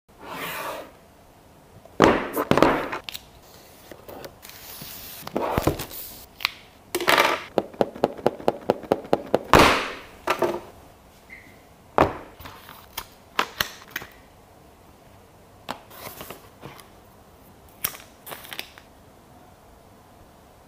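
Handling sounds of unboxing a smartphone: a cardboard box set down on a wooden tabletop with a thunk, packaging sliding and rubbing, a quick run of about a dozen even clicks in the middle, and a few sharp knocks followed by lighter taps.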